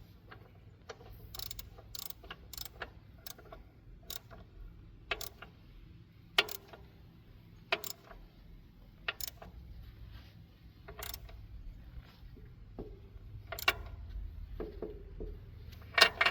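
Hand wrench tightening the 1-1/4-inch track-adjuster jam nut on a mini excavator, giving sharp separate clicks, one every second or so, spacing out toward the end. This is the jam nut being locked after the track tension is set.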